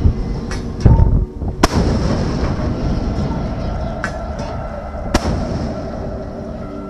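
Artillery and gunfire: about six sharp reports at irregular intervals over a continuous low rumble, the heaviest boom about a second in.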